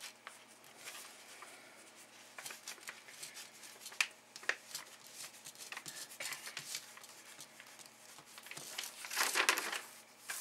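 Plastic cover film of a diamond painting canvas crinkling and rustling under the hands, with scattered soft clicks and a louder rustle about nine seconds in.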